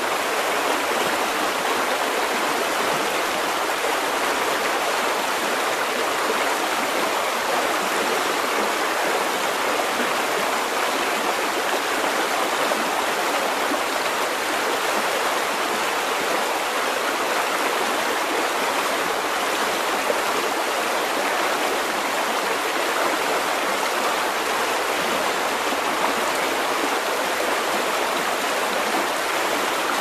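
Small forest river in flood, its fast brown floodwater rushing steadily over its banks.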